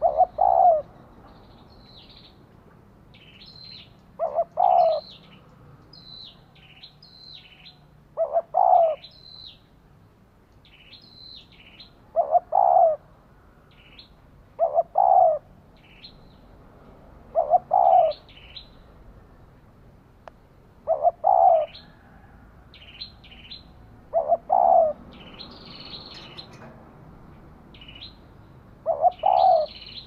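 Female spotted dove cooing in short calls of two quick notes, repeated about every three to four seconds: the hen's call used to stir and lure male spotted doves. Small birds chirp faintly and often between the coos.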